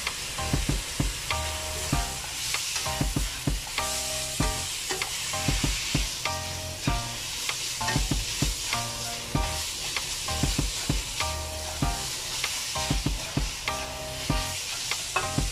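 Minced pork sizzling in a hot nonstick wok while a spatula stirs and scrapes it, with frequent small clicks of the spatula against the pan.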